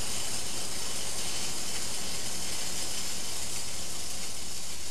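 Aluminum MIG welding arc burning steadily as a constant, even hiss, with a low steady hum beneath it.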